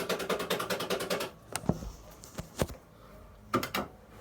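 Coin-operated kiddie ride train making a fast electronic ticking, about ten ticks a second over a steady tone, as it readies to start. The ticking cuts off about a second in, followed by a few separate clicks.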